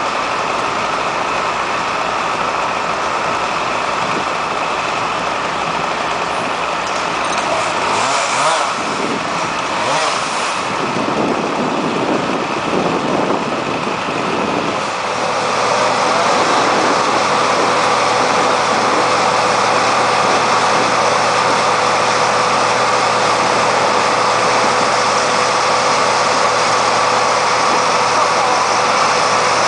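An engine runs steadily. Around 8 to 10 seconds in there is a brief rush of noise. About 15 seconds in the engine steps up louder and holds there.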